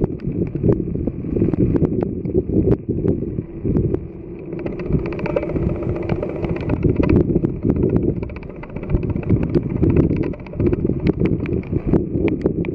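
Gusty wind buffeting the microphone in rain, a rumbling noise that swells and dips quickly, with scattered small clicks. The taxiing Boeing 737's jet engines run faintly underneath.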